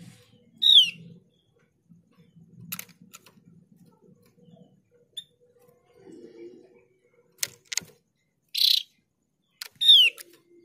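Female opior jawa (Javan grey-throated white-eye) calling to a male: two loud, sharp whistled notes that slide downward, one near the start and one near the end, with a short harsh rasping note and a few sharp clicks in between.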